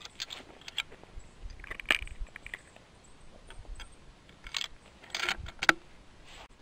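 Irregular clicks and rattles of a bolt-action rifle being reloaded, a cartridge taken from a plastic ammo box, with a cluster of sharper clicks and the loudest click near the end.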